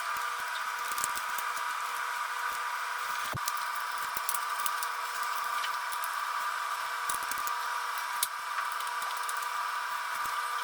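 A small electric motor runs at a steady speed with an even, high whine, with light clicks and taps of handling scattered over it.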